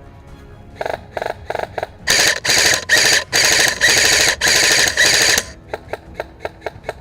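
Airsoft rifle firing: a few single shots about a second in, then long full-auto bursts from about two seconds to five and a half, followed by a quick string of single shots.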